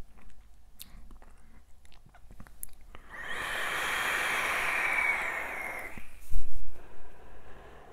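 A long draw on a vape, with the firing coil sizzling and air hissing through the atomizer for about three seconds, then stopping. Just after it, a single loud thump.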